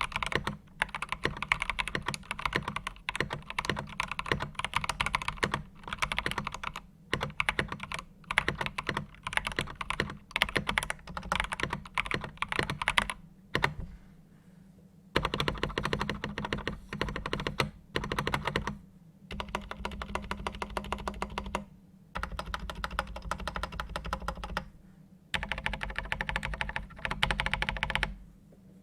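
Attack Shark K75 mechanical keyboard with PBT keycaps being typed on: fast runs of keystrokes broken by brief pauses, the longest about halfway through.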